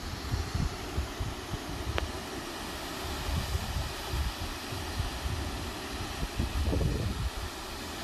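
Wind buffeting the microphone in irregular low gusts, over a steady rushing hiss that fits the waterfall's flow over the ledge.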